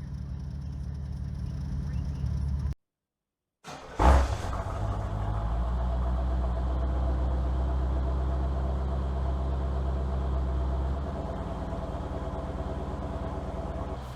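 Vehicle engine running steadily. It cuts to silence briefly, then comes back with a loud burst about four seconds in and settles into a steady run that eases a little near the end.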